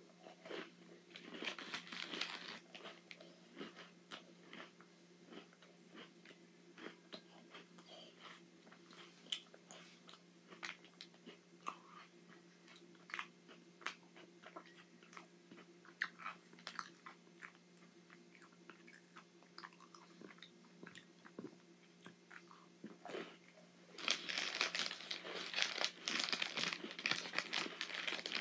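Close-up chewing and crunching of Oreo cookies, with crisp bites scattered throughout. Near the end comes a louder, denser crinkling of the plastic Oreo snack-pack wrapper being handled.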